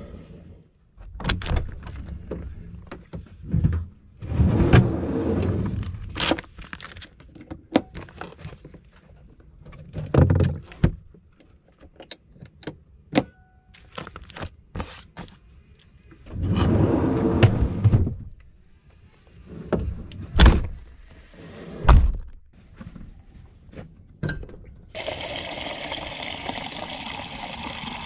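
Camping gear being handled and set down: a string of knocks, thuds and clatter as panels, bottles and stove parts are moved around. For the last few seconds there is a steady hiss.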